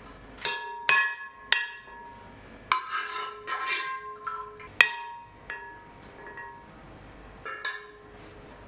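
Metal cookware and utensils knocking and clinking together, about eight irregular sharp strikes that each ring briefly, the loudest about five seconds in.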